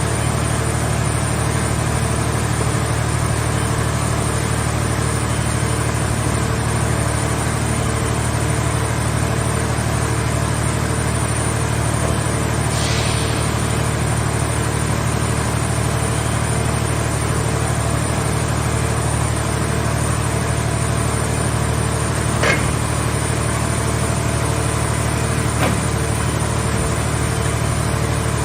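Scrap car baler's engine-driven power unit running at a steady idle-like hum. A brief hiss comes about halfway through, and two short clicks near the end.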